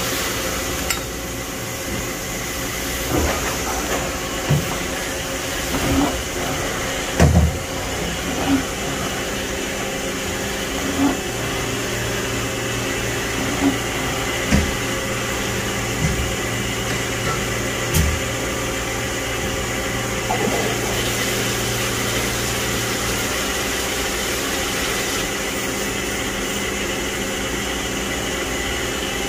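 2000 Matsuura ES-450 CNC vertical machining center running: a steady machine hum with several held tones. About ten short knocks come in the first eighteen seconds, and a lower hum joins about ten seconds in and drops away a little after twenty-three seconds.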